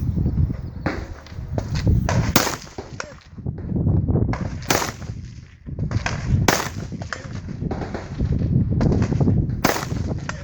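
AR-15 rifle firing single shots: four loud, sharp cracks spaced about two seconds apart, with fainter cracks and a low rumble of movement or wind between them.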